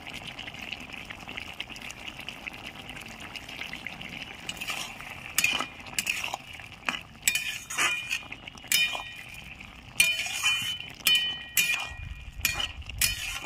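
A flat metal spatula stirring a thick potato-and-taro curry in a metal kadai, scraping and clinking against the pan with some strokes ringing briefly. It sets in about four seconds in; before that there is a steady hiss from the steaming, simmering curry.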